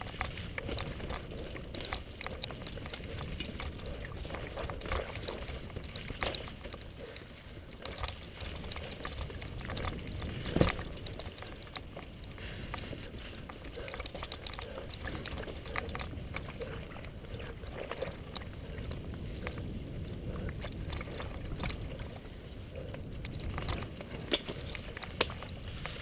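Mountain bike riding over leaf-covered dirt singletrack: a steady rumble of the tyres on the trail, with frequent clicks and rattles from the bike. The sharpest knock comes about ten seconds in.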